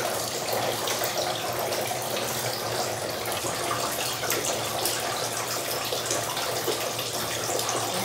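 Steady rain: an even hiss of falling water with many small drips and splashes throughout.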